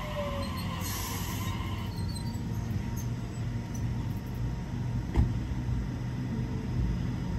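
Sydney Trains double-deck electric train slowing to a stop: its motor whine falls in pitch and dies away in the first half-second, leaving a steady low hum from the standing train. One sharp thump about five seconds in.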